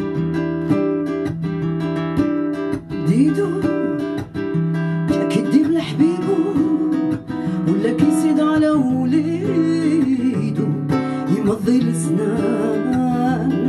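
Nylon-string classical guitar strummed and picked in steady chords, with a woman singing over it from about three seconds in, her voice gliding and wavering.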